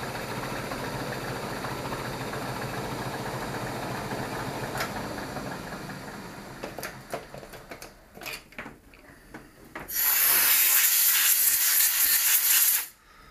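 Milling machine running with its end mill taking a light cut in a small metal shaft, a steady machining noise that dies away about halfway through into a few scattered clicks. About ten seconds in, a compressed-air blow gun gives a loud, steady hiss for nearly three seconds, blowing the chips off the part.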